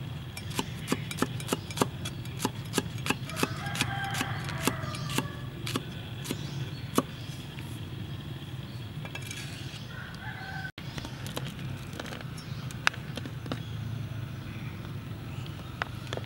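Cleaver blade slicing through red chili peppers onto a wooden chopping board: crisp, even knocks about three a second, thinning to occasional knocks after about seven seconds.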